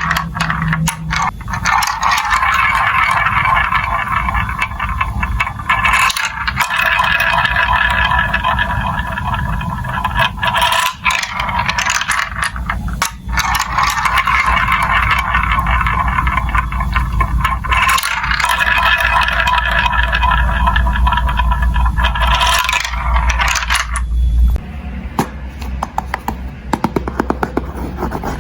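Many marbles rolling and rattling down plastic building-block marble-run tracks in a continuous clattering stream. Near the end it thins to separate clicks as fewer marbles run.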